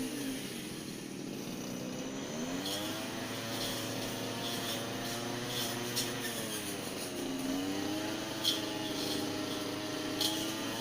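Petrol brush cutter engine running, its revs dipping and picking up again several times, with a few sharp ticks in the second half.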